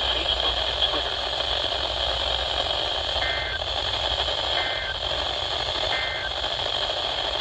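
Weather radio receiver hissing with static on a weak signal. About three seconds in come three short two-tone data bursts, about 1.4 s apart: the Emergency Alert System's end-of-message code closing an alert.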